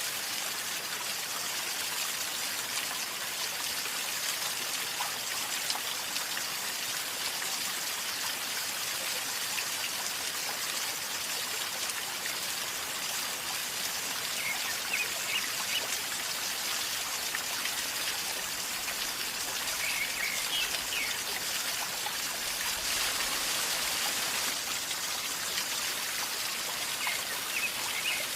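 River water flowing and gurgling steadily, an even babbling with no let-up.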